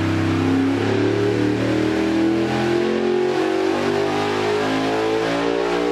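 468 cubic-inch big-block Chevy V8 running on an engine dyno: it holds a steady speed briefly, then its pitch climbs steadily for about five seconds as the engine is swept up through its rev range in a dyno pull.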